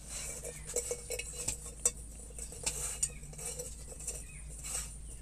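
Light metal clinks and knocks, with sand scraping and crunching, as a round metal piece is worked loose and lifted out of dark sand with a cloth. The clicks are short and irregular, and the sharpest comes a little under two seconds in.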